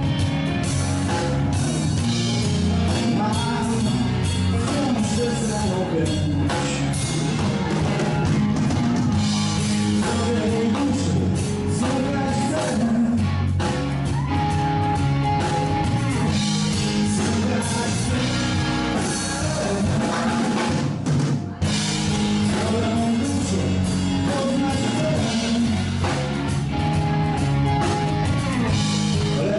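Blues-rock band playing live: electric guitar, bass and drum kit. The music breaks off for a moment about 21 seconds in, then carries on.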